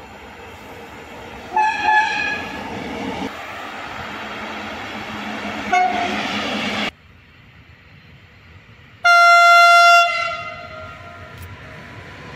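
Electric locomotives sounding their horns on freight trains passing. The first train's running noise builds as it approaches, with a horn blast about a second and a half in and a short toot near six seconds. After a cut, a second locomotive gives one loud, steady horn blast lasting about a second, about nine seconds in, which is the loudest sound.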